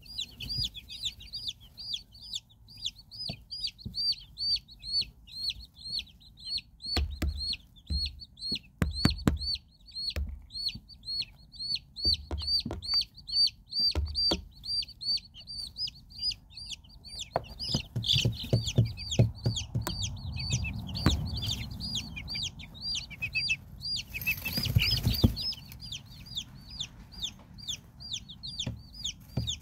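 Silkie chicks peeping steadily: a constant run of short high cheeps, about four a second. Mid-way there are scattered low knocks and then a rustling as the fluffy birds brush against the microphone.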